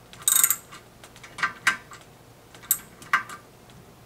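Ratchet wrench clicking as it tightens the nut on a toilet's T-bolt, drawing the bowl down onto its wax ring in small increments: a quick run of clicks about a third of a second in, then a few single clicks.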